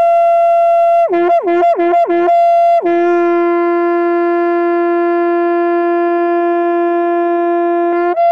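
Conch shell (shankha) blown in long sustained notes. A steady high note breaks down an octave and back about four times, then settles into one long low note held for about five seconds, and jumps back up to the high note near the end.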